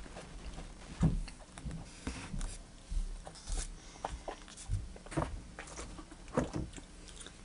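Table-top handling noises while tasting soda: irregular soft knocks and clicks of plastic cups being picked up and set down, with sips and a pen writing on paper.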